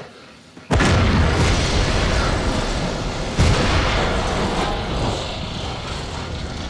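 A loud explosion from a TV drama's soundtrack goes off suddenly under a second in and rumbles on. A second blast hits about three and a half seconds in, and the rumble slowly dies away.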